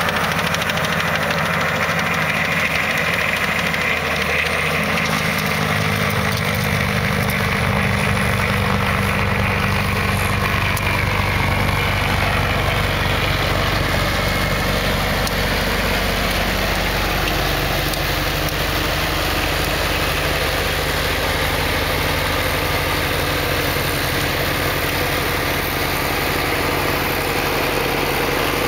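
White 4-155 tractor's diesel engine running steadily under load, driving a tractor-mounted snowblower that is throwing snow.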